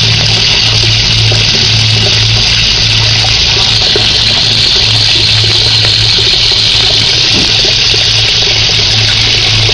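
Steady rush of water from a pond pump's outlet splashing into a fish pond, with a steady low hum underneath.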